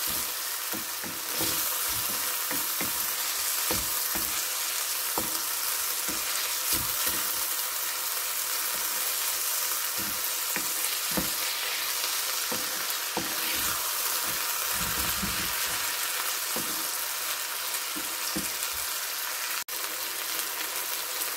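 Noodles, chicken and bok choy sizzling steadily in a hot nonstick pan, with a wooden spatula knocking and scraping against the pan as it stirs and tosses them, irregularly, about two strokes a second.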